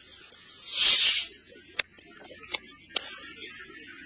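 Fireworks throwing sparks: a loud hissing rush about a second in, with sharp pops before and after it.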